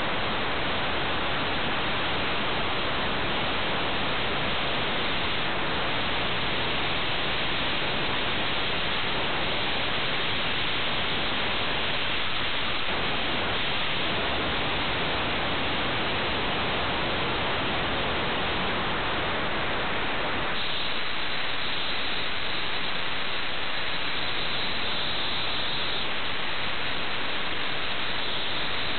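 Steady hiss like static, even and without any pitch; it turns slightly brighter and thinner about twenty seconds in.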